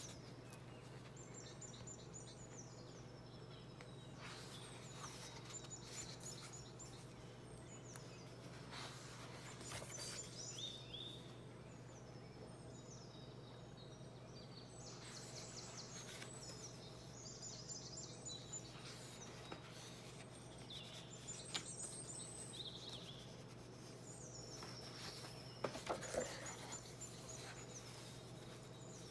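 Large paper pages of an oversized book turned and smoothed by hand, in soft rustles, with a louder rustle of handling near the end. A bird chirps short, high, repeated phrases in the background over a steady low hum.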